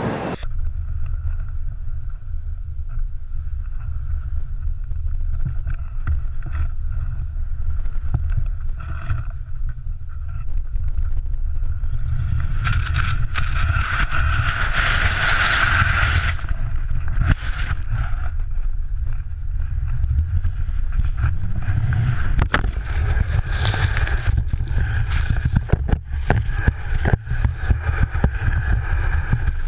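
Steady heavy rumble of wind buffeting the microphone, with bursts of hissing, scraping noise from about 13 to 16 seconds in and again from about 22 seconds on.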